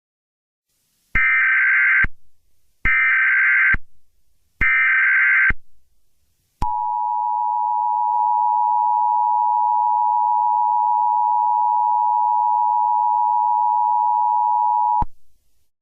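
Emergency Alert System alert opening: three one-second bursts of harsh SAME digital header data, then the EAS two-tone attention signal, a steady dual-tone alarm held for about eight seconds before it cuts off abruptly. It signals the start of an emergency alert.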